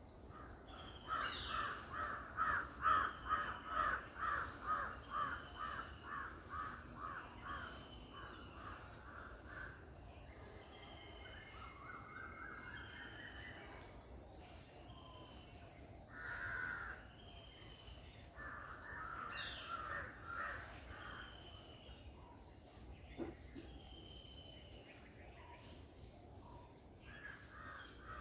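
Birds calling: a harsh call repeated about twice a second for several seconds, fading away, then further scattered calls. A thin, short falling note repeats every second or so throughout.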